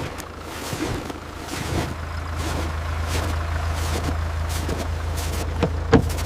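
A low, steady rumble of a motor vehicle running, starting about a second and a half in, with scattered light knocks and one sharper knock near the end.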